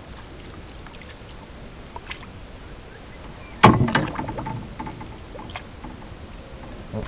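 Water lapping and sloshing around a landing net in shallow lake water, then a sudden loud splash about three and a half seconds in that fades over about a second, as the landed carp thrashes in the net.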